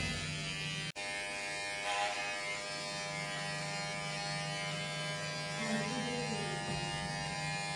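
Electric hair trimmer buzzing steadily as it cuts hair at the side of the head, with a brief break about a second in.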